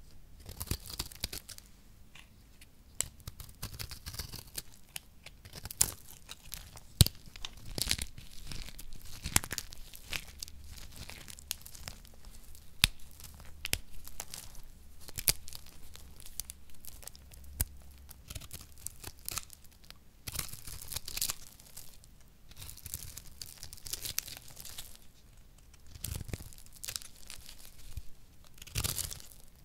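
A knife blade shaving and cutting dry recycled soap, with dry crackles and crunches as flakes break off, and soap pieces crumbled between the fingers. Sharp cracks stand out here and there, the loudest about 7 seconds in.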